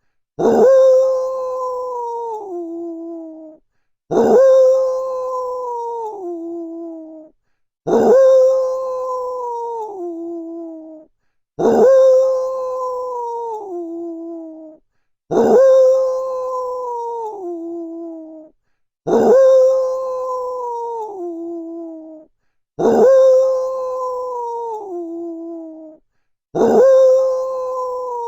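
A wolf's whining moan: one call of about three seconds that starts sharply and steps down in pitch, repeated identically about every three and a half seconds as a looped sound effect.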